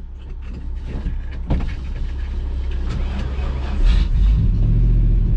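Truck engine running, heard from inside the cab, then revving louder about four seconds in as the truck gets moving.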